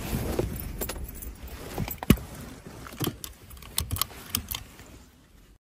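Car keys jangling and clicking as they are worked loose from where they are stuck beside the handbrake, in irregular clinks that thin out near the end.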